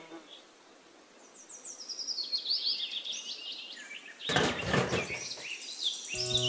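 Small birds chirping in short, quick, up-and-down calls over a faint background hiss. About four seconds in, a brief noisy burst cuts across them.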